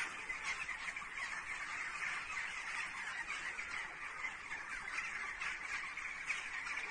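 A large flock of birds calling all at once, many overlapping cries blending into a dense, continuous din.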